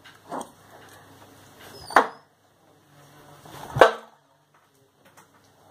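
Thrown darts hitting the dartboard area: two sharp impacts about two seconds apart, the second with more low thud, after a fainter knock near the start.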